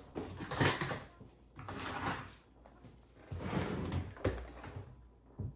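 Rummaging for a hand mirror: several short bouts of objects being scraped and moved about, with a sharp knock about four seconds in and another near the end.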